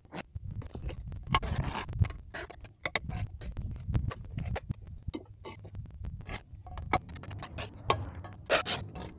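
Masonry work with a steel trowel and mortar: irregular scrapes and clicks as mortar is scooped and spread on the trowel and a concrete block is set and nudged into the wet mortar bed.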